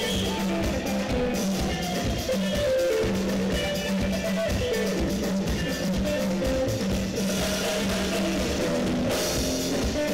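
Zimbabwean guitar band playing live: a drum kit keeps a steady beat under electric guitar and sustained bass notes, with no singing heard.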